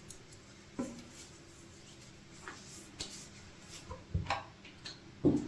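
A few light clicks and knocks of small objects being handled and set down, spaced a second or more apart, the loudest near the end.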